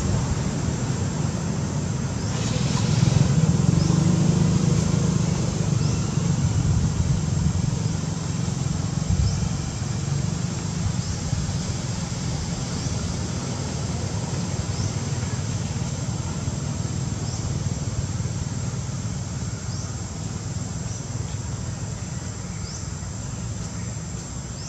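Motor vehicle engine running nearby, a steady low rumble that swells a little about three to six seconds in, with faint short high chirps over it.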